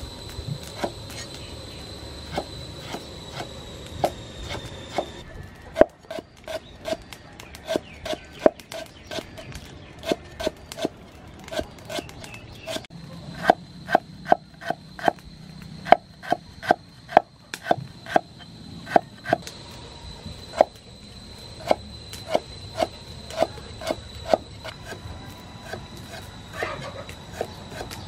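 Cleaver slicing through lemongrass stalks onto a thick round wooden chopping block: a steady run of knocks, about two a second, quickening in the middle.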